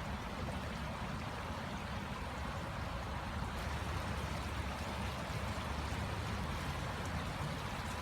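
Water of a stream flowing, a steady rushing noise.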